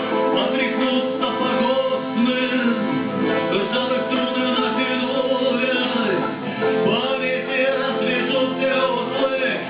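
Live acoustic band music: guitar strumming with a voice singing over it.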